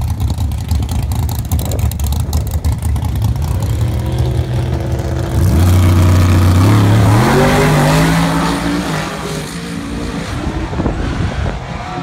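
Two drag race cars, one of them a Ford Probe, rumbling at the start line, then launching at full throttle about five and a half seconds in. The engines climb in pitch in steps, then fade as the cars run away down the track.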